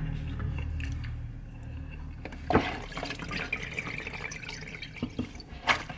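A sharp knock about two and a half seconds in, then liquid dripping and splashing with a couple more knocks near the end, as a pickled jalapeño is fished out of its jar of brine.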